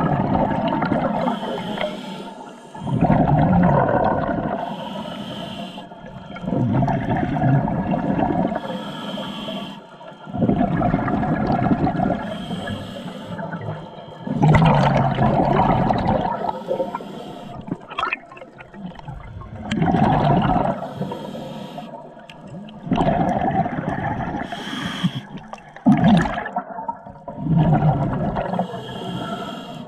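A scuba diver breathing through a regulator underwater: a rushing, bubbling surge of exhaled air about every three to four seconds, with quieter inhales between.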